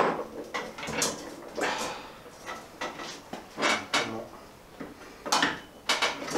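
A hooked pry tool scraping and clicking against the mouth of a motorcycle fork leg in a series of irregular metal-on-metal strokes, levering out the old fork seal.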